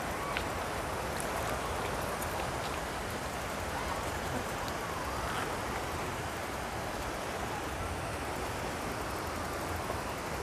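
Waterfall: the steady rush of falling water.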